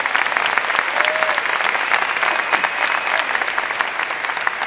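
A large arena audience applauding: dense, sustained clapping that begins to ease near the end.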